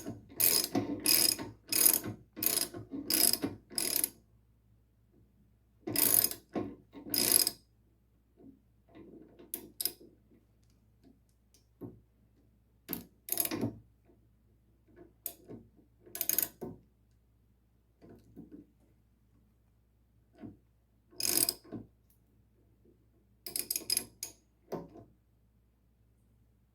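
Ratchet wrench clicking in quick back-and-forth strokes, about three a second, as it runs a fine-threaded swingarm pivot bolt into a motorcycle frame. The ratcheting stops after about four seconds and returns in short runs with scattered lighter clicks between.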